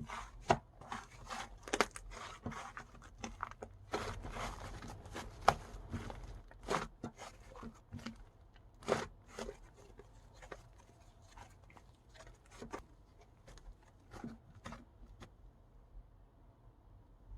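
Slime being pressed and poked by hand, giving irregular sharp clicks and crackles, dense at first and thinning out after about ten seconds.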